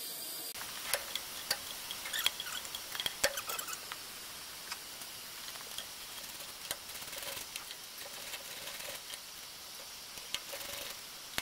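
Hand socket wrench ratcheting and clinking on the lug nuts of a 1950 International Harvester L-120's rear wheel as they are loosened by hand: irregular metallic clicks, busier in the first few seconds and sparser later.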